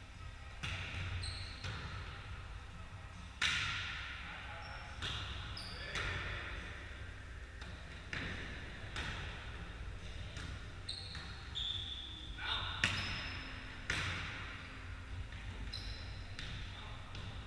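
A volleyball being hit and striking the floor about eight times, each sharp hit echoing around a large gym hall, with short high squeaks of sneakers on the wooden court in between.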